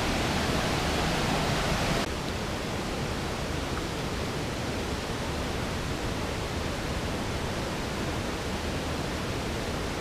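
Steady rushing roar of waterfalls and running water, without pause. It drops a little in level about two seconds in, then holds steady.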